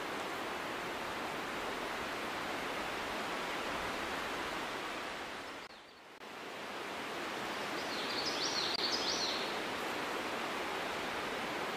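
Steady outdoor background hiss that fades out briefly midway and comes back, with a short run of high chirps about eight seconds in.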